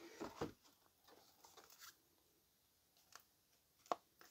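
Near silence with a few faint rustles and clicks of a plastic blister pack and a paper insert being handled, the sharpest click near the end.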